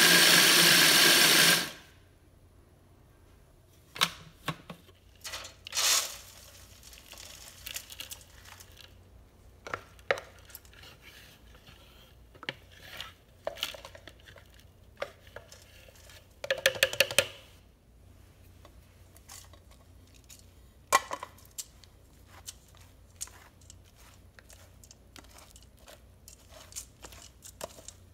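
A food processor grinding cashews into powder, cutting off suddenly about two seconds in. After that come scattered clicks, taps and short scrapes as the ground cashews are handled in a metal sieve and worked with a plastic spatula.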